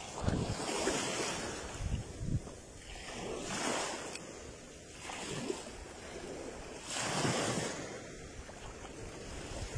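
Rough surf breaking and washing onto the shore in surges every couple of seconds, with wind buffeting the microphone.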